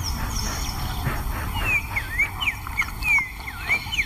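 Birds calling: a run of short whistled chirps, each sweeping down or up in pitch, repeating from about a second and a half in, over a low steady rumble.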